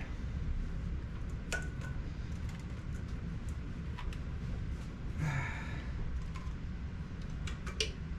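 A few light clicks and taps of plastic electrical connectors being pushed onto the throttle-body fuel injectors, over a steady low hum.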